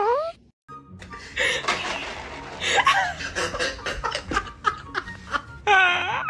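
Laughter mixed with music, with a short wailing call that dips and rises in pitch at the very start and again near the end.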